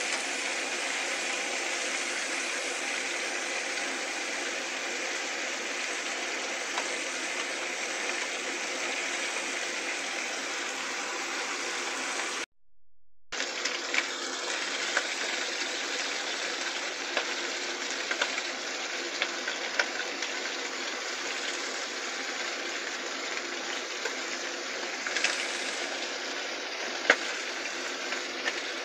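Chicken pieces frying in oil in a nonstick pan, a steady sizzle with scattered light clicks of chopsticks turning them. The sound cuts out for under a second near the middle.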